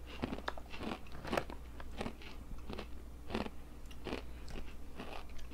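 Kettle-style potato chips being chewed: crisp, irregular crunches about every half second.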